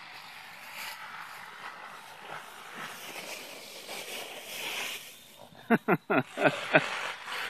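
Dry autumn leaves rustling and crunching as a Chihuahua puppy plays in a leaf pile. Near the end comes a quick run of five loud, short sounds.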